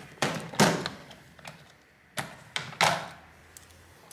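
Small hand tools handled on a workbench: a few short knocks and clatters, the loudest about half a second in and a cluster of three between two and three seconds in.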